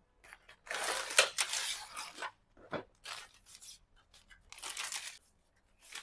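Cardboard carton of ceiling fan blades being slit and torn open, followed by plastic wrapping rustling as a blade is drawn out. There are two rough spells of tearing and crinkling, one starting about a second in and another about four and a half seconds in, with a few small clicks between.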